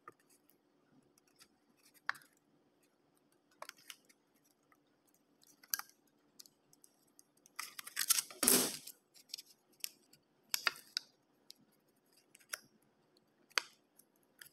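Thin aluminum sheet cut from a soda can being bent and folded by hand against a steel ruler: scattered crinkles and light metallic clicks, the loudest crinkling about eight seconds in.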